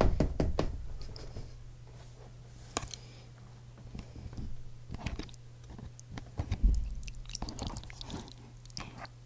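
Close-miked chewing of food, with a loud bite at the start, scattered short clicks and a low thump about two-thirds of the way in.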